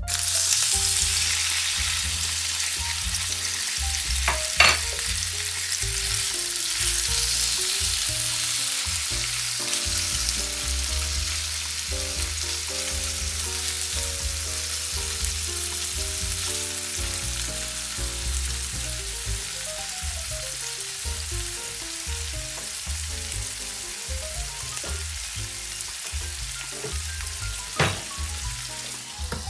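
Cubed raw chicken breast sizzling in hot oil in a nonstick frying pan. The sizzle starts suddenly as the chicken hits the oil and eases slowly. Two sharp knocks against the pan, a few seconds in and near the end.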